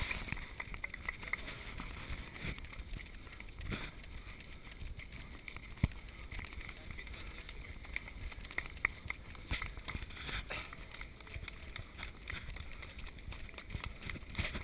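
Footsteps on a dirt path, with irregular knocks and rustle from the body-worn camera and people talking in the background.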